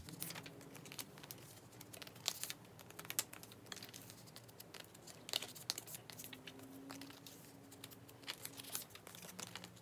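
Photocards being slid into the clear plastic pockets of a binder page: soft crinkling and rustling of the plastic sleeves, with scattered light clicks as the cards are handled.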